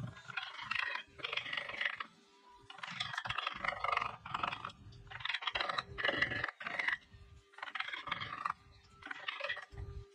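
Repeated rasping strokes of a hand tool working wood, about ten strokes at roughly one a second, each lasting under a second.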